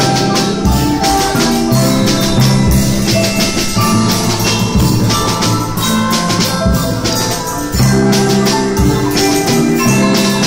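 Mallet-percussion ensemble playing a piece on marimbas and xylophones, many tuned notes at once over sustained low marimba notes, with drum and cymbal strokes keeping the beat.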